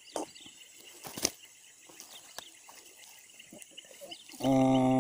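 Light handling noises and a few sharp clicks as a caught snakehead is turned over in the hands, over steady faint insect chirping. Near the end comes a loud, low, flat droning tone held for under a second.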